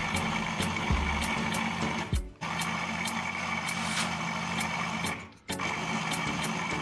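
Electric food chopper's motor running steadily with a high whine, mincing chicken mince in its bowl. It stops briefly twice, about two and five seconds in, and starts again each time.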